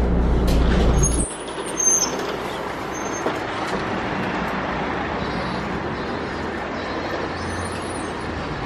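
Articulated city bus running, a deep rumble inside the cabin that cuts off about a second in. Street traffic noise follows, with a few brief high squeaks near the start.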